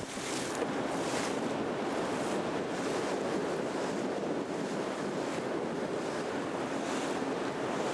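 Wind buffeting the microphone over water rushing along a boat's hull under way, with repeated hissing splashes of spray.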